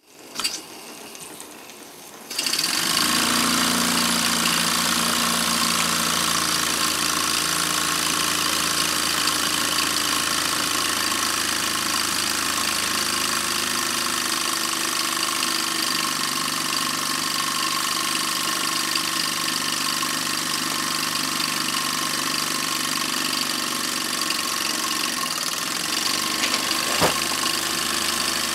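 Model engine driving a Meccano drum winch, running with a steady mechanical whirr and hiss that starts abruptly about two seconds in. A sharp click comes near the start and another near the end.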